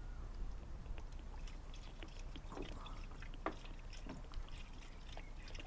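Petrol being poured and sloshing from a fuel can into a lawnmower's fuel tank, with small clicks and knocks of the can being handled.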